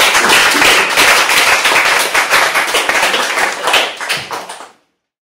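Small audience applauding, dense hand clapping that thins out about four seconds in and dies away soon after.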